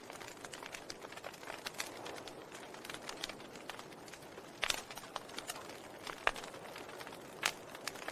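Wood fire crackling in a fireplace: a steady soft hiss with frequent small pops and a few sharper cracks, the loudest about halfway through and again near the end.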